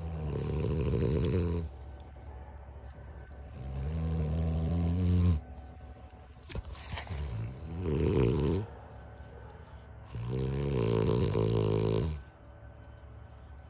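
French bulldog snoring: four long snores a couple of seconds apart, each lasting one to two seconds.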